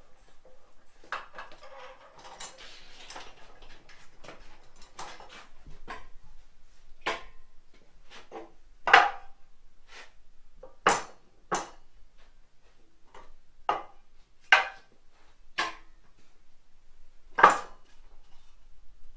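Metal parts and tools being handled and set down: a dozen or so sharp, irregular metal clanks and clinks, the loudest about halfway through and near the end.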